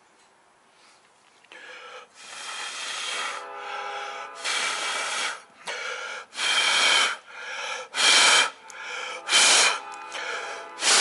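A small motorized tool running, with about six bursts of grinding as it is pressed against the metal RC boat propeller in passes of roughly a second each, the later passes the loudest.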